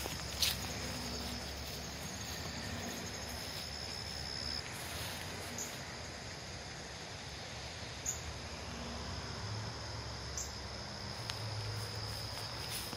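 Outdoor ambience with an insect's steady high trill for the first four seconds or so, then a few short high chirps, over a low rumble and a steady hiss.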